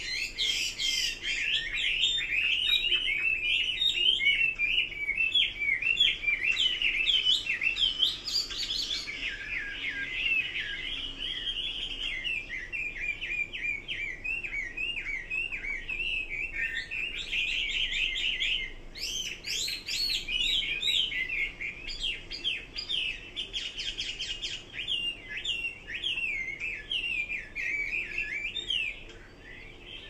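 Caged Chinese hwamei singing a long, continuous song of fast, varied whistled notes and trills, easing off near the end.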